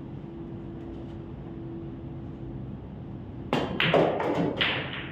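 Pool shot: the cue strikes the cue ball about three and a half seconds in, followed within a second or so by a quick run of sharp clicks and knocks as the balls hit each other and the cushions. Before the shot there is only a faint steady hum.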